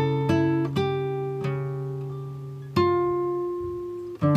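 Background instrumental music of plucked string notes. Each note starts sharply and rings out slowly, with a new one every second or so and a longer gap near the middle.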